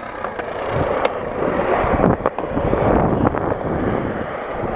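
Skateboard wheels rolling over concrete, a steady rumble with a few sharp clicks scattered through it.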